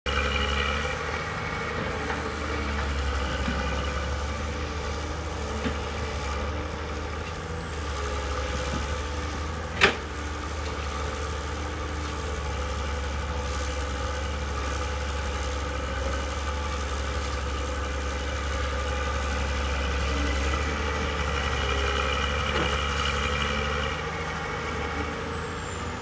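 Komatsu hydraulic excavator's diesel engine running steadily as it digs, with a higher whine that grows and fades as the arm works. There is a single sharp knock about ten seconds in.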